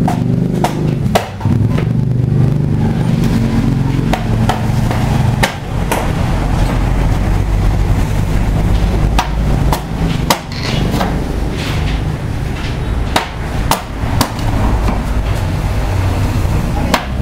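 Tools striking bamboo: about a dozen sharp knocks at irregular intervals over a steady low rumble.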